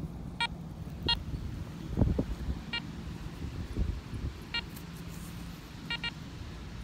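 A metal detector giving short electronic beeps at irregular intervals, six in all, the last a quick double beep near the end, as it sweeps over a target it has found. Low rustling and a dull thump about two seconds in.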